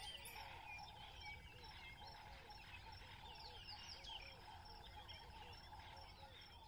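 Faint birdsong: many quick, short chirps and a steadily repeated lower call, over a soft outdoor hush.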